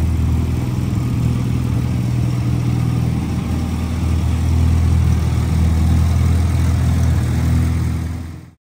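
1964 MG Midget's BMC A-Series four-cylinder engine idling steadily, until the sound fades out near the end.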